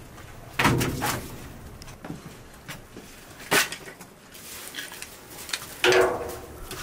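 Three short bursts of knocking and clatter: the first about half a second in, one midway, and one near the end.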